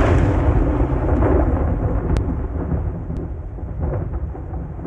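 Thunder-like rumble sound effect of a channel outro sting: a loud, deep rumble that slowly fades away.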